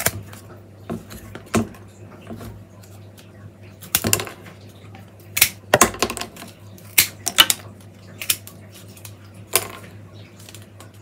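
Hand secateurs snipping through willow rods, trimming the loose ends off a woven willow wreath hoop: a series of sharp, crisp snips at irregular intervals.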